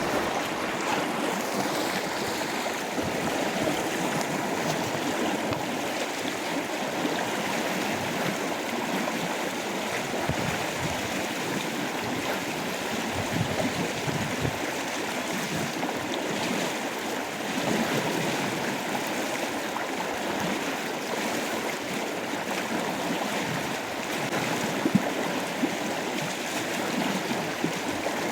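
A river's flowing water rushing steadily, with one brief sharp click near the end.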